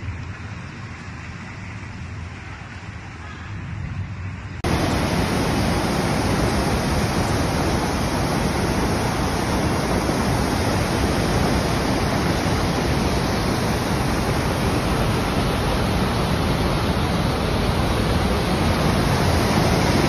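Rushing floodwater: a steady, even rushing noise, quieter at first, that jumps abruptly to a much louder level about five seconds in and holds steady from then on.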